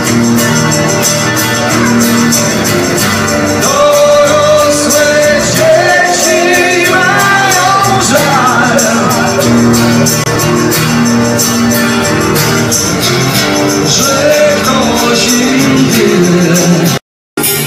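Live acoustic rock performance: a male singer with two acoustic guitars and hand percussion. The sound drops out completely for a split second near the end.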